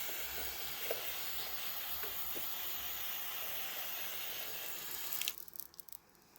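A steady, even hiss that cuts off abruptly about five seconds in.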